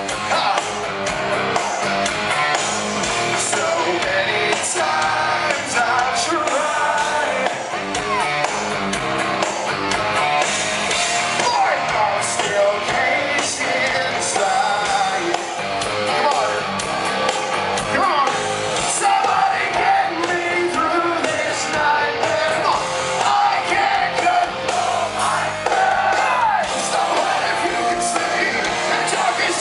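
Hard rock band playing live, with electric guitars, drums and a male lead singer, recorded from within the crowd.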